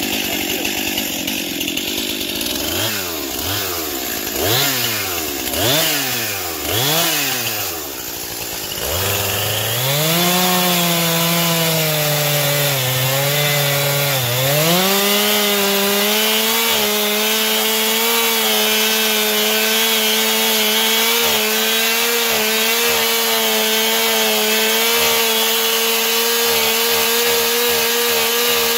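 Stihl MS 261 C two-stroke chainsaw revved up and down in four quick blips, then opened to full throttle and held there cutting through a tree trunk. Its pitch dips briefly about halfway through, then holds steady and high.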